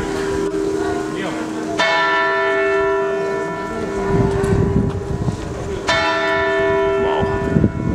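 The Zytglogge clock tower's hour bell struck by the hammer of its gilded figure, tolling the hour. Two strokes about four seconds apart, each ringing on with a long fading hum that runs into the next.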